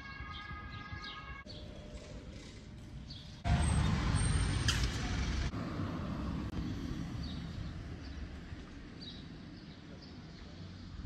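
Small birds chirping repeatedly over outdoor background noise. About three and a half seconds in, a loud rushing noise comes in for two seconds, then dies away gradually over the next few seconds.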